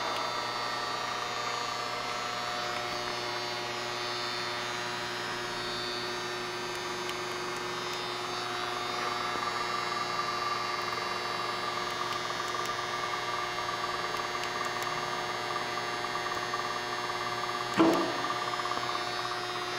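Chevalier FSG-1228AD surface grinder's electric motors running with the automatic cycle stopped: a steady hum with several pitched tones. A short louder noise comes near the end.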